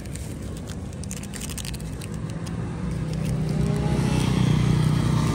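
A small motorcycle's engine running as it goes by, growing louder from about halfway through.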